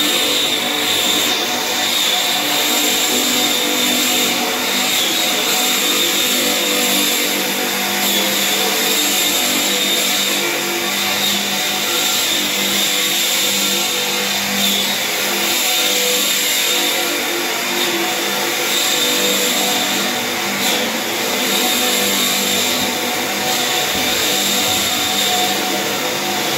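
Aluminium flat belt conveyor running, its electric geared motor giving a steady hum with a high, even whine.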